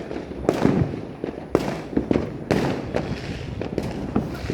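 Fireworks going off in a continuous barrage: a loud bang about every second, with many smaller pops and crackles in between.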